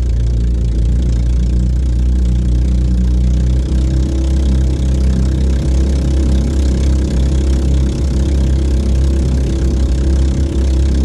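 Golden Horse 7 hp single-cylinder marine engine running steadily at high speed, driving an outrigger banca, with the hiss of rushing water and spray off the hull.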